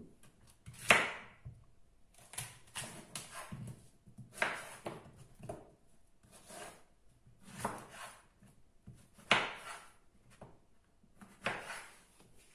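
Kitchen knife slicing a zucchini on a wooden cutting board: a string of knocks as the blade cuts through and hits the board, about one a second, some in quick clusters.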